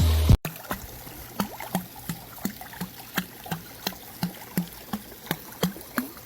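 Rhythmic water splashing, about three short strokes a second: a dog paddling as it swims. Just before it, the preceding music cuts off abruptly, about half a second in.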